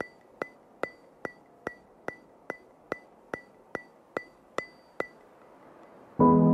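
Background music: an even ticking beat, about two and a half ticks a second with a short ringing tone on each tick, stops about five seconds in. Sustained keyboard chords with a stepping melody come in near the end.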